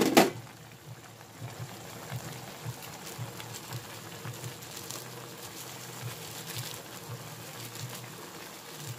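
Coconut milk simmering in a steel pot with crabs, squash and string beans, a steady soft bubbling with small irregular pops. A single sharp knock comes right at the start.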